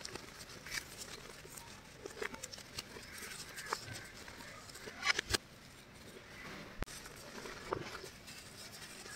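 Hands squeezing and crumbling soft lumps of white powder, with soft crunches and the patter of powder falling back into a bowl. A few sharper clicks stand out about five seconds in and again near seven seconds.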